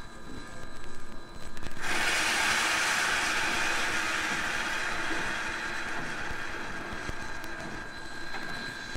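Steam locomotive letting off steam: a sudden loud hiss starts about two seconds in and slowly dies away over several seconds.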